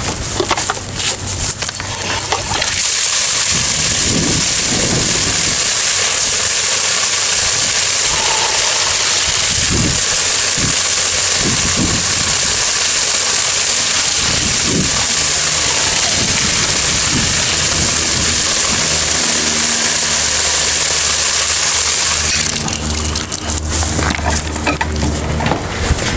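Welding on a steel light-bar bracket: a steady crackling hiss that starts abruptly about three seconds in, runs for nearly twenty seconds and stops suddenly, with a few knocks before and after.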